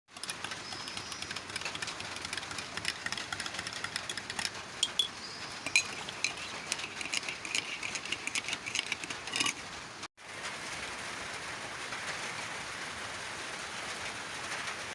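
Steady rain with many small drips and taps over the first ten seconds; the sound cuts out briefly about ten seconds in and resumes as an even rain hiss.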